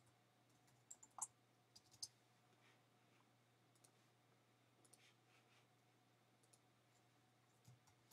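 A few faint computer mouse clicks, sharp and short, clustered about one to two seconds in with a couple fainter ones later, over near silence.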